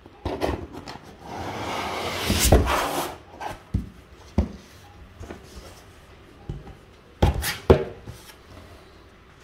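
Cardboard box being opened by hand: a scraping rustle of the flaps being pulled back, then a few sharp knocks and rustles as the packaged groceries inside are handled.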